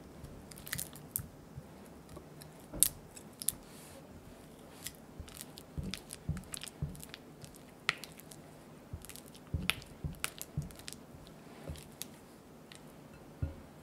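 Spatula mashing and smearing softened unsalted butter against the sides of a glass mixing bowl: soft squishing with irregular light clicks and taps of the spatula on the glass, the loudest a little under three seconds in. This is the butter being worked smooth, the first step of a butter-cookie dough.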